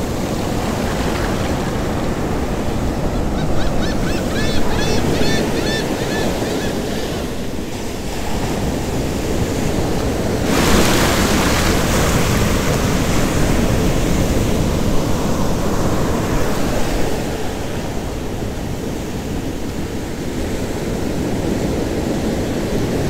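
Shallow surf washing up over the sand and draining back, a steady rushing. A bigger wash comes in louder about ten seconds in and lasts several seconds.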